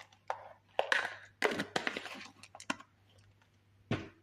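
Whole cloves dropped into a saucepan: a quick run of small clicks and rattles in a few bursts over the first three seconds, then a single knock near the end.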